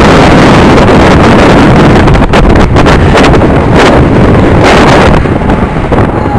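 Strong wind buffeting the camcorder's microphone: a loud, steady rumbling noise that nearly overloads the recording, easing slightly near the end.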